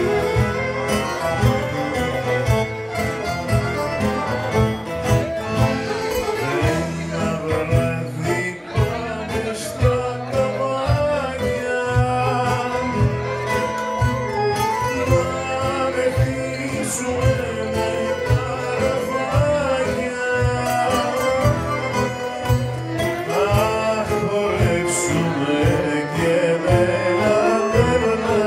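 Live Greek folk band playing a song at a steady beat: violin, bouzouki, accordion and percussion, with a man singing.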